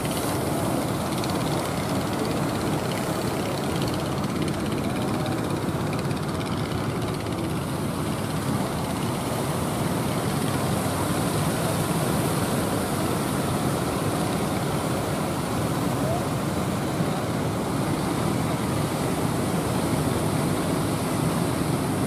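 Steady rush of rough, breaking surf and wind, mixed with the engines of small outrigger fishing boats running out through the waves.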